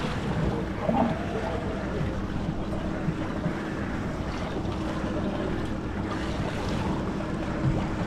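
Wind buffeting the microphone and water lapping around a small fishing boat on the open ocean, with a steady low hum underneath.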